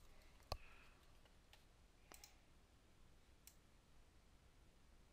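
Near silence with a few faint clicks of a computer keyboard or mouse in use: one sharper click about half a second in, then three fainter ones spaced out.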